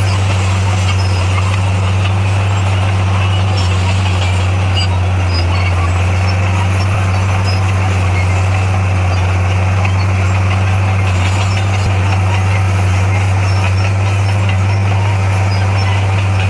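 Bulldozer's diesel engine running steadily, a constant low drone with no revving.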